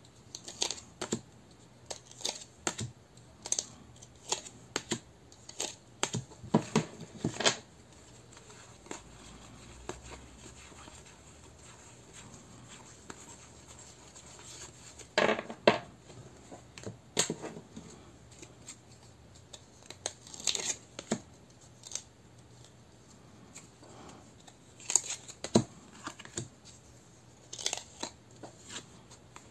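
Tarot cards being handled one at a time: short sharp snaps and taps of the card stock as cards are flipped and set down, in irregular clusters with a quieter stretch of several seconds about a third of the way in.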